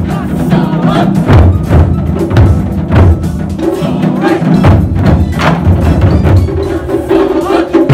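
Japanese taiko drums struck with wooden sticks in an ensemble rhythm: deep drum hits mixed with sharp wooden clicks.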